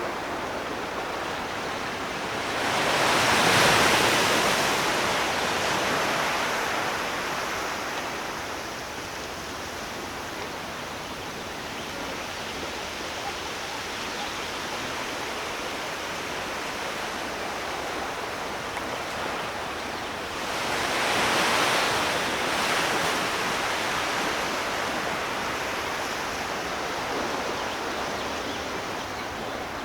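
Sea waves surging onto a shore: a steady wash of surf with two waves swelling and breaking, about eighteen seconds apart, each building and fading over a few seconds.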